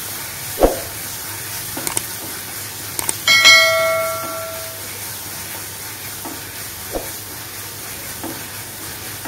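Masala sizzling as it fries in an aluminium pan, with a few knocks of a wooden spatula against the pan as it is stirred. About three seconds in, a bright bell-like ding rings out and fades over a second and a half: a notification-bell sound effect laid over the cooking.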